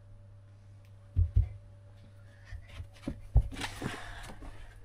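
A few soft thumps, footsteps on carpet, then rustling and knocking as a child's school backpack is picked up off the floor, starting about three and a half seconds in.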